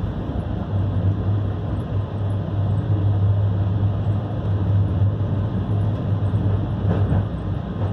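Passenger train running, heard from inside the carriage: a steady rumble with a low hum.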